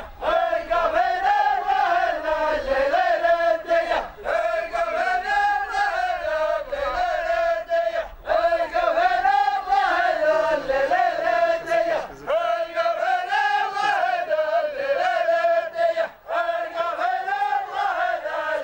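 A line of men chanting in unison, one melodic phrase about four seconds long that rises and falls and repeats with short breaks between.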